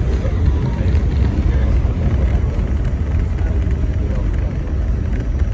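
Inside an R68A New York subway car running through a tunnel: a steady, loud rumble of the train in motion, heaviest in the low end.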